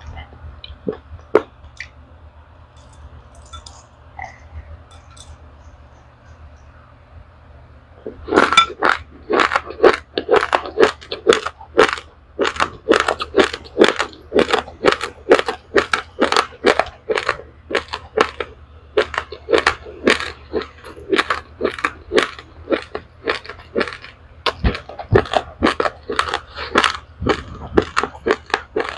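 A person chewing a mouthful of dry-roasted raw rice, black and white grains mixed. It starts quiet with a few isolated clicks, then from about eight seconds in turns to loud, rapid crunching, several crunches a second.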